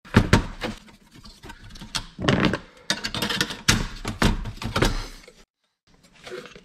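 Irregular clicks, knocks and rattles of a car radio's circuit board being worked free and lifted out of its sheet-metal chassis by hand.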